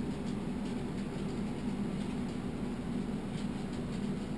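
Steady low hum of background noise, with a few faint clicks that fit a mouse scroll wheel turning.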